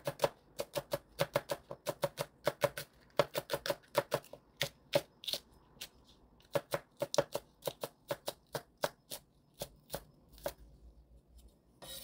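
Kitchen knife slicing a green onion into thin rings on a wooden cutting board: quick, even knife strikes, several a second, with a few short pauses.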